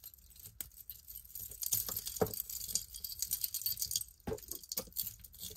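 Costume jewelry clinking and rattling as a hand sifts through a pile of metal chains, bangles and beaded necklaces, with irregular small clicks and jingles.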